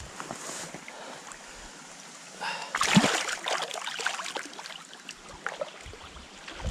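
A released chub splashing hard in shallow river water as it breaks free of the hand, about three seconds in, with a moment of smaller splashing after it over the steady wash of the river.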